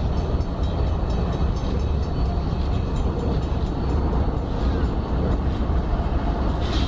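Diesel locomotives of a CN freight train running steadily as they come onto a bridge: a continuous low rumble, with a brief high-pitched sound near the end.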